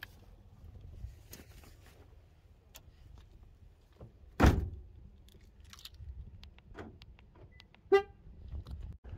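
Honda Element's door slammed shut about halfway in, amid small clicks and handling of gear, then a short horn chirp near the end as the car is locked with its key fob.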